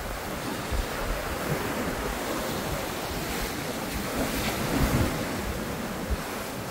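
Sea surf: waves breaking and foam washing up over the sand, with wind buffeting the microphone. The surf swells louder about four to five seconds in.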